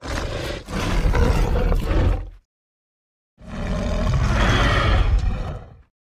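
Two separate roars of a film Carnotaurus creature sound effect, each about two and a half seconds long, the first starting right away and the second about a second after the first ends. Each is cut cleanly out of silence, with no background behind it.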